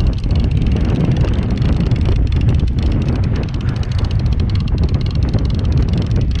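Steady wind buffeting the microphone aboard a boat at sea, a heavy low rumble with constant crackle.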